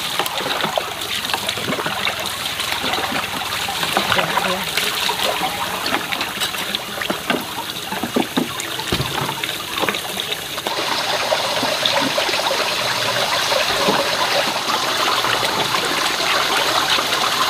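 Running water splashing and trickling, with small knocks and clicks mixed in; about ten seconds in it settles into a steadier, slightly louder flow.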